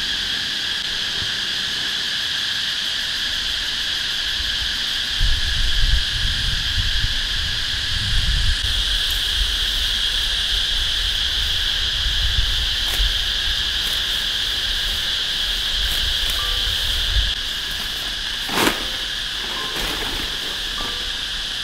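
Steady, continuous high-pitched chorus of insects such as crickets. A low rumble runs through the middle, and a single sharp knock comes a few seconds before the end.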